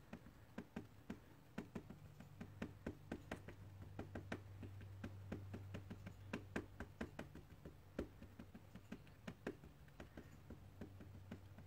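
Quick, faint taps of a dye ink pad being dabbed against a stamp as it is inked, a few taps a second at an uneven pace, over a low steady hum.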